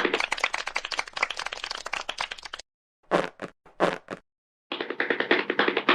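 Rapid, dense clicking or tapping sound effects that stop dead about two and a half seconds in, with two short bursts in the gap, then start again about a second before the end.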